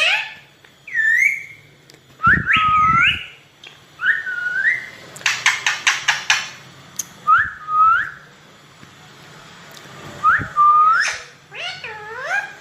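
Pet parrot whistling: about five short rising whistles, with a quick run of sharp clicks about halfway through and harsher, wavering calls near the end.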